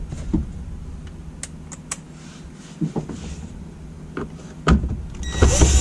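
Light plastic clicks and taps as console trim pieces are handled and pushed into place. About five seconds in, a cordless drill-driver starts with a loud steady whirring whine.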